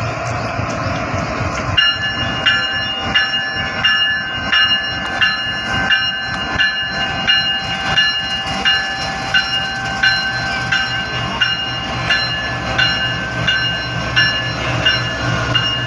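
GEU-40 diesel-electric locomotive pulling away slowly, its engine running with a steady low hum. From about two seconds in there are regular metallic clicks from the wheels, roughly three every two seconds, over a steady high metallic ringing.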